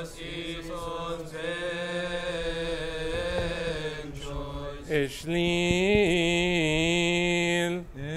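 Coptic liturgical chanting: long held vocal notes in two phrases, the second louder, with a wavering melismatic turn in its middle.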